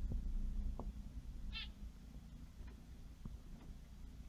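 A finch gives one short call about a second and a half in, over a low steady hum.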